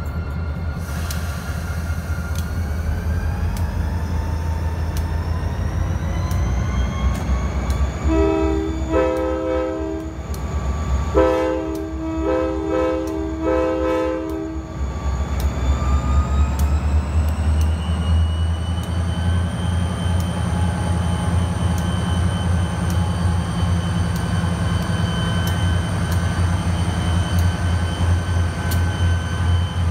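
EMD SD40-2 diesel locomotive running close by with its heavy two-stroke V16 rumble, the engine pitch climbing twice as it throttles up. It sounds a string of multi-note air horn blasts, about five short and long, from about a quarter to halfway through.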